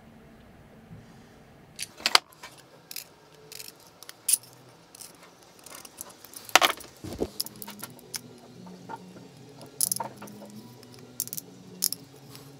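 Small metal tools and hard acetal plastic parts being handled on a workbench: irregular sharp clicks and clinks, the loudest about two seconds in and again past the middle.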